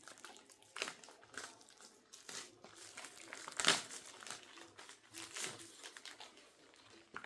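Packaging crinkling and rustling as it is handled and unwrapped, in irregular bursts, the loudest a little over three and a half seconds in.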